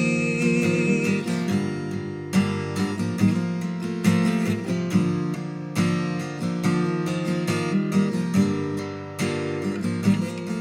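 Instrumental break in a worship song: acoustic guitar strumming chords, changing every second or two, with no singing.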